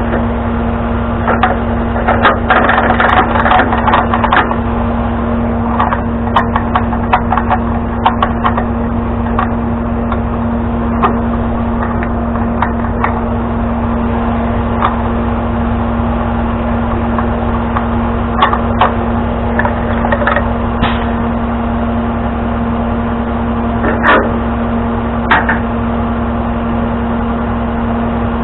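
Truck engine running at a steady idle, with scattered knocks and clanks over it, busiest in the first few seconds and again later on.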